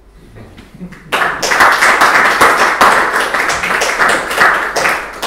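Audience applauding: hand clapping starts suddenly about a second in and dies down near the end.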